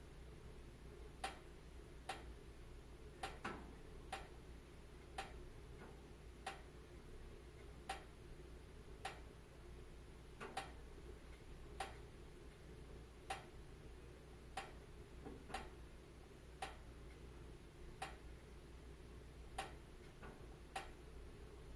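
Wood fire in a fireplace crackling: faint, sharp pops at uneven intervals, roughly one a second, over a steady low rush of the flames.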